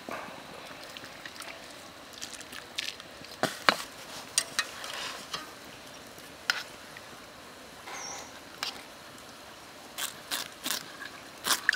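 Scattered light knocks and scrapes of a knife and a water snake against a steel wok, with quicker scraping strokes near the end as the knife is run along the snake's skin.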